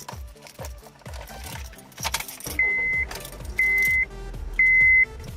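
Keys rattle about two seconds in, then the 2009 Honda Civic's warning chime starts beeping, a single steady high beep about once a second. Background music with a steady beat plays throughout.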